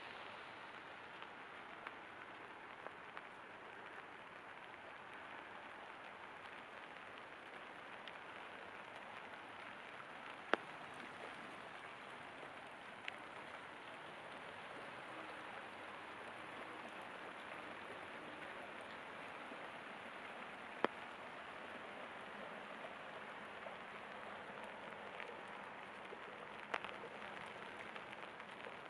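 Steady rain falling and pattering, with a few sharp, louder ticks of single drops, about three, spread through it.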